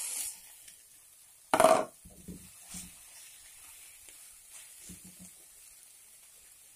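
Cassava leaves stirred with a plastic spatula in a hot non-stick wok: a short sizzle fades away at the start, and a brief loud clatter comes about a second and a half in. After that there is only faint stirring.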